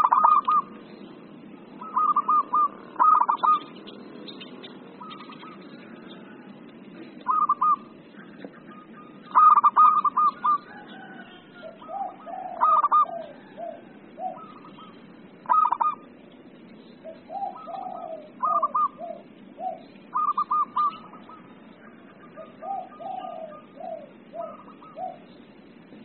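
Zebra doves (perkutut) giving excited, 'emosi' calls: short rapid bursts of staccato coos repeated every second or two. In the second half, runs of lower, falling coos come in between them. A steady low hiss lies underneath.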